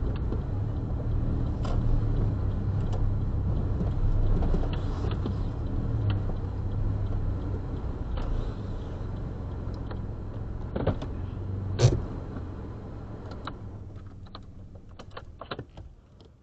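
Car running, heard from inside the cabin as it slows and pulls up, with a steady low rumble. A sharp click comes near the twelve-second mark, then the rumble dies away and a few light clicks and knocks follow near the end.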